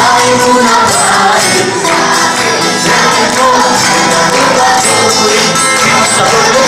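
A group of children singing a song over music accompaniment.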